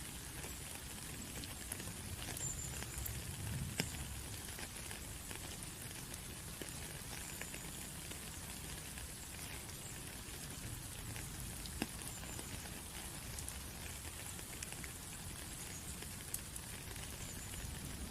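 Steady rain pattering on a surface, with scattered sharper drips ticking through it.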